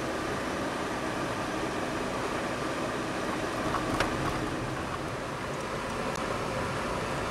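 Steady engine and road noise heard inside a Citroën car driving slowly on a narrow lane. A single short click or knock comes about four seconds in.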